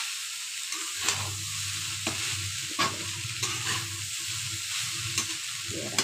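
Poha pulao frying in an oiled kadhai while it is stirred: a steady sizzle, with the spatula scraping and knocking against the pan about once a second.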